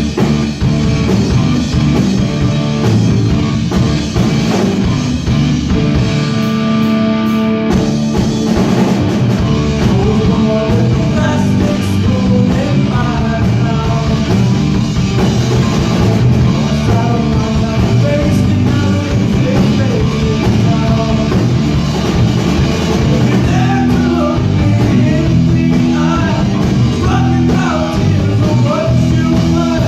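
Rock music: electric guitar and drum kit playing, with held chords for the first several seconds, then a singing voice comes in over the band.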